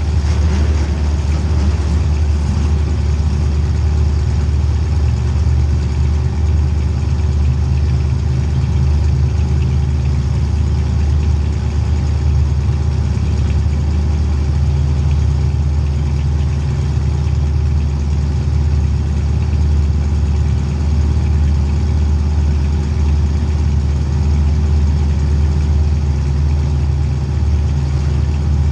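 Race vehicle's engine running steadily at an even speed, a deep drone with little change in pitch.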